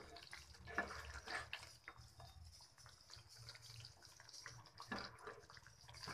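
Pea and mushroom curry simmering in a kadhai, its thin gravy bubbling faintly while a spoon stirs it, with a few light clicks of the spoon against the pan.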